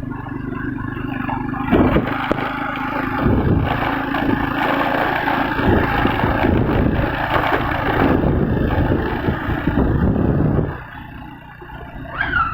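An engine running with a rattling, scraping clatter over it. It grows louder about two seconds in and drops away sharply near the end.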